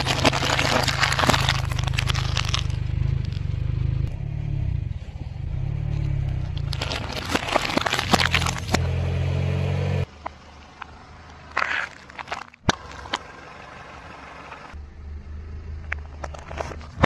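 Glass light bulbs cracking and crunching under a slowly rolling car tyre, in two bursts of crackling over the car engine's steady low hum. About ten seconds in the engine hum stops abruptly, and only a few scattered cracks follow.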